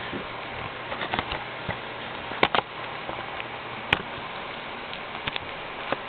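Shrink-wrap plastic being peeled and torn off a Blu-ray case: scattered crinkles and crackles, with a few sharp clicks about two and a half and four seconds in.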